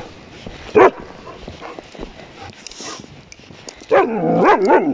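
Young German Shepherd giving one sharp yelp about a second in, then a run of high squealing whines near the end. These are the little squeals of a dog surprised by a newly fitted prong collar tightening as she pulls.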